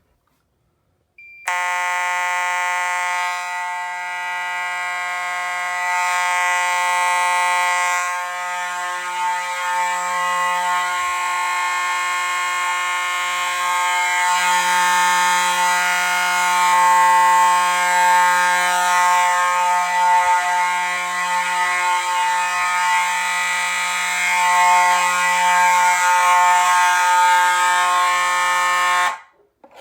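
Fire alarm horn sounding, set off by a manual pull station: a steady, unbroken buzzing horn tone starts about a second and a half in and cuts off suddenly near the end.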